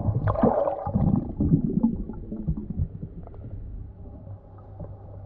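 Muffled underwater sound from a camera held below the surface: swishing water and bubbling with a few soft knocks, busiest in the first two seconds, as a hand feels over a boat propeller.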